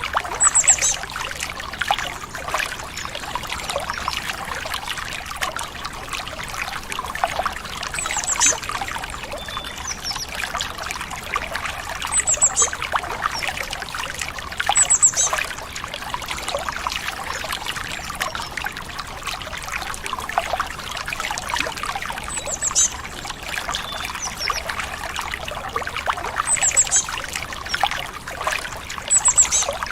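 Small stream trickling and babbling, with short high bird chirps every few seconds, some in quick pairs.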